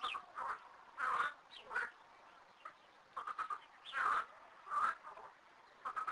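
Water frog croaking with its paired vocal sacs inflated: a string of short croaks, about eight in all, with a quick rattling run of pulses about three seconds in.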